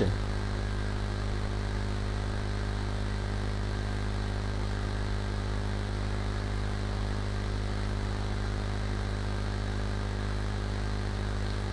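A steady low hum with a layer of hiss that does not change, the recording's background noise.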